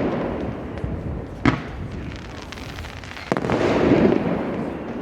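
Fireworks display: a crackle fading out at the start, a sharp bang about a second and a half in, then another burst just past three seconds followed by about a second and a half of crackling that dies away.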